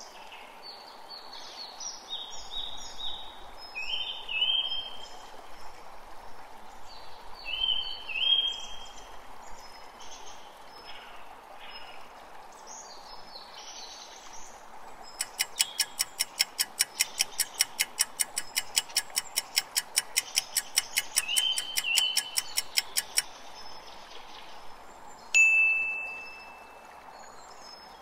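Birdsong over a soft steady hiss like a stream. About fifteen seconds in, a countdown clock ticks steadily at about three ticks a second for some eight seconds. Then a single bright chime rings out and fades as the answer is revealed.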